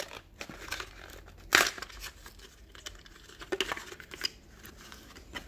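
Plastic blister pack of a diecast car crinkling and crackling as its glued bubble is pried and peeled off the cardboard backing card, with irregular crackles and a sharper crack about one and a half seconds in.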